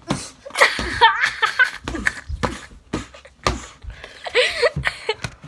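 Several punches with boxing gloves landing on a body as sharp slaps and thuds, mixed with a child's laughter and high squeals.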